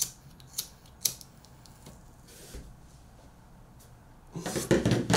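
A pocket lighter clicked three times in the first second to light a glass pipe, then a faint hiss as the smoke is drawn in. Near the end comes a loud burst of breath, the loudest sound here.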